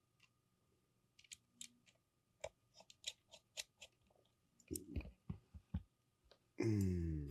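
Scattered light clicks and taps of hands and small tools on a Canon EOS R's small parts and connectors during reassembly. A brief voice sound near the end.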